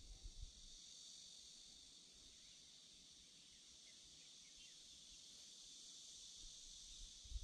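Faint, steady chorus of insects, a high even drone, with a few faint short chirps a little after the middle. A low bump at the start and again at the very end.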